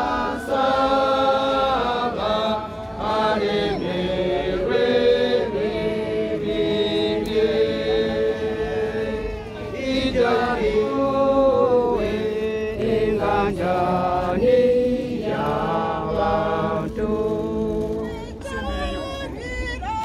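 Voices singing a slow chant, holding long notes that step from one pitch to the next.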